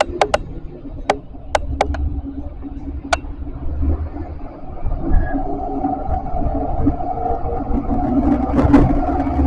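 Tram running on its line, heard from on board: a string of sharp clicks in the first few seconds, then a low rumble with a steady hum that grows louder.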